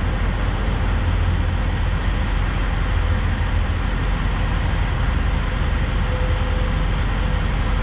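Steady low rumble of idling engines, with a faint steady hum over it.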